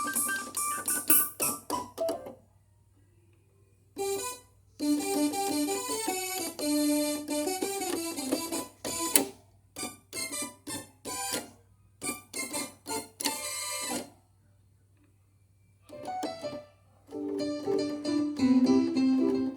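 Nord Stage 3 stage keyboard playing short phrases of notes in piano and electric-piano sounds, stopping twice for a second or two of silence.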